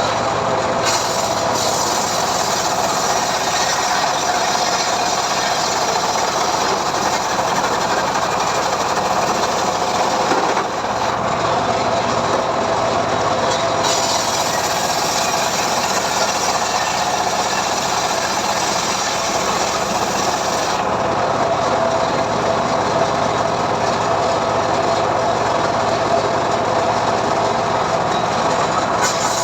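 Homemade band sawmill running steadily while ripping a mahogany log, a continuous loud machine whine with a held tone. The higher hiss of the cut shifts a few times as the blade works through the wood.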